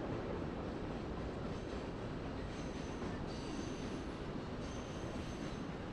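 A train rolling on rails: a steady rumble of wheels on track, with a few brief high-pitched wheel squeals.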